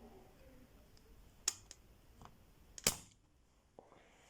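Spring-loaded solder sucker (desoldering pump) snapping as it sucks molten solder out of the old charging port's holes on the phone board: two sharp clicks about a second and a half apart, the second louder with a brief rush after it.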